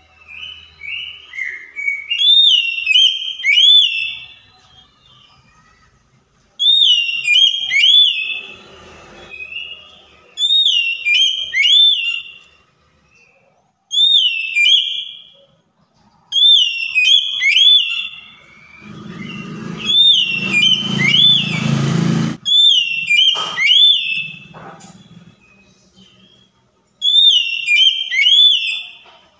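An Oriental magpie-robin singing about eight bursts of song, each a second or two of quick slurred whistled notes, with short pauses between. A brief low rumbling noise and a knock come about two-thirds of the way through.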